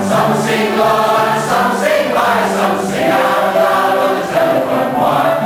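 A hall audience singing a chorus together, many voices in unison holding each note for about half a second to a second.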